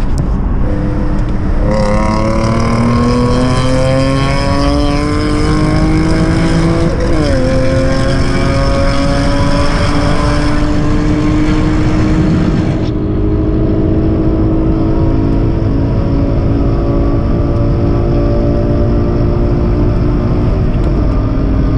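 Acura TL SH-AWD's 3.7-litre V6 with a J-pipe, accelerating hard at wide open throttle: the pitch climbs steadily, dips briefly at gear changes about five and seven seconds in, and eases off slightly near the end as the throttle is lifted.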